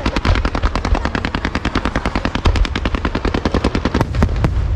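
Fireworks going off in a rapid, even string of sharp bangs, about ten a second, thinning to a few separate cracks near the end, over a low rumble.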